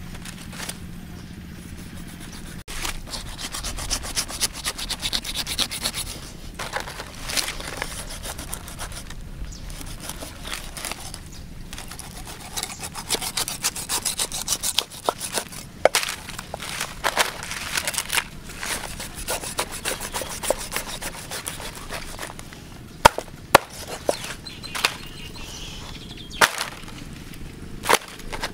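A cleaver blade scraping repeatedly across the wet skin of a whole stingray on a wooden chopping board, in rasping strokes. Near the end there are a few sharp knocks.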